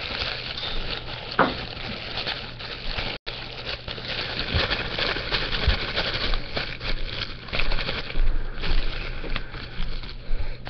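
Plastic airsoft BBs being poured into a plastic pill bottle: a dense, irregular patter of small clicks and rattles.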